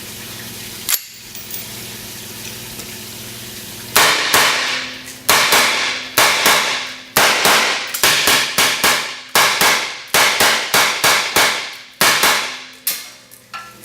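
KEG 556, a 5.56 AR-15 pistol with a 7-inch barrel, firing: about twenty sharp shots in quick strings, a third to half a second apart with short pauses, starting about four seconds in, each shot trailing off in a ringing echo.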